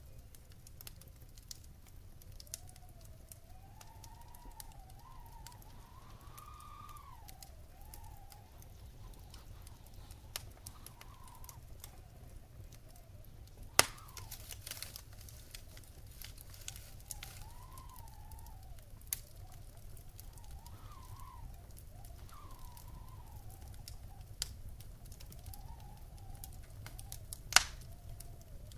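Wood fire in a fireplace crackling with scattered small pops and two sharp loud pops, one about halfway and one near the end, over a steady low rumble. A faint wavering whistle rises and falls in pitch through it.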